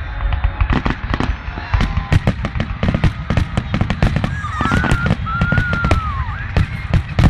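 Aerial fireworks bursting in rapid succession: many sharp bangs and crackles with deep booms. A high wavering tone rises and falls about halfway through.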